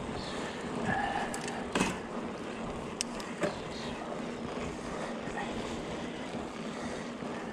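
Bicycle ride on a trail: steady wind and tyre noise on the microphone, with a few sharp clicks and rattles from the bike about two, three and three and a half seconds in.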